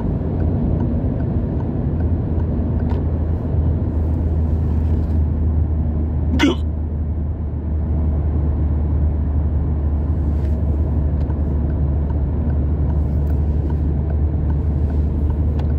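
A person hiccups once, sharply, about six seconds in, over the steady low rumble of a car's cabin.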